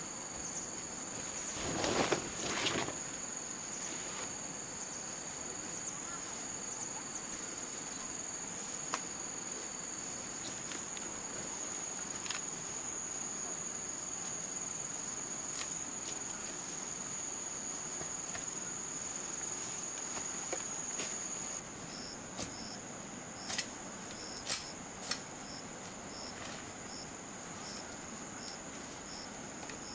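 A steady high-pitched insect drone that, about three-quarters of the way through, gives way to an evenly pulsing chirp about one and a half times a second. A rustle of leaves about two seconds in and a few sharp knocks near the end come from a hand tool working the ground.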